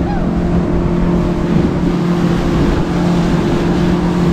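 A 50 hp outboard motor running steadily at cruising speed, its low hum holding an even pitch over the rush of wind and water along the hull.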